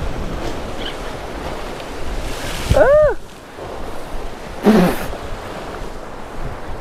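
Sea waves surging and breaking against the rocks below, with wind buffeting the microphone. Two louder surges come, one about two and a half seconds in and one near five seconds; with the first comes a short pitched call that rises and then falls.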